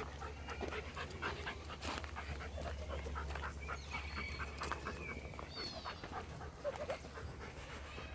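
An animal panting in quick, irregular breaths, with a few faint bird chirps.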